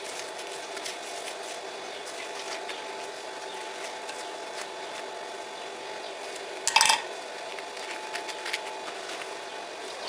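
Hand-tapping a thread into a steel plate with a T-handle tap wrench: faint scattered clicks of the tap cutting over a steady hum, with one loud sharp knock about seven seconds in.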